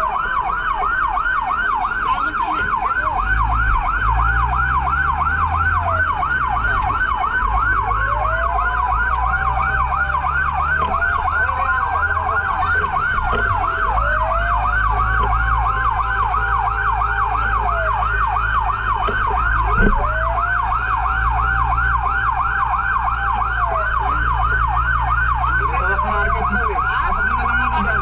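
Fire truck siren on a fast yelp, sweeping up in pitch over and over. A second, slower wail rises and falls every few seconds, and a vehicle engine runs low underneath from a few seconds in.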